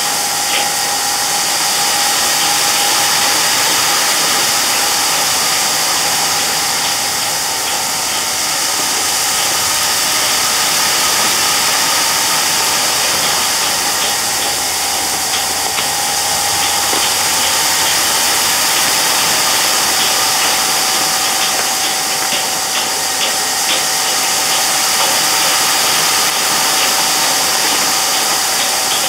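Steady running of a large rotating konpeito pan: an even machine hum with a constant hiss as granulated sugar pours into the turning steel pan, with a few light ticks.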